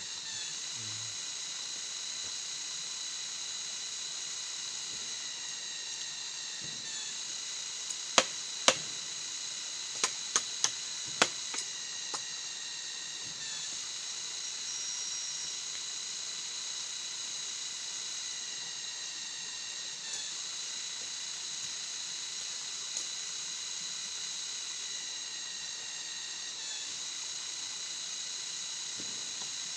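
Cicadas droning in a steady high-pitched chorus that swells and dips about every six to seven seconds, with a few sharp knocks or snaps about eight to twelve seconds in.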